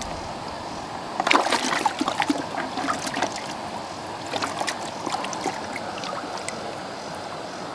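Water splashing and sloshing in a plastic bucket as a hand grabs a channel catfish in it. There is a burst of splashes from about a second in, then lighter sloshing, over a steady background hiss.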